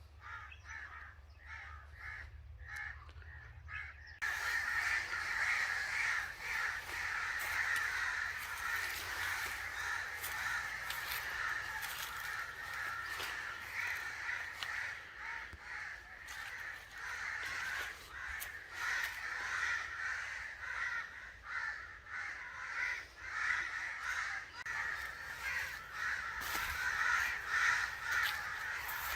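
Crows cawing, many calls overlapping into a continuous chorus. The calling is fainter for the first four seconds, then turns suddenly louder and denser.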